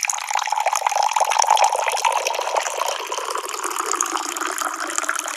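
Coffee poured from a stainless steel stovetop moka pot into a ceramic cup: a steady splashing stream, its pitch rising slightly as the cup fills.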